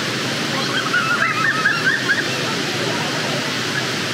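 Waterfall rushing steadily over rock into a churning pool. About a second in come a few brief high calls that waver up and down.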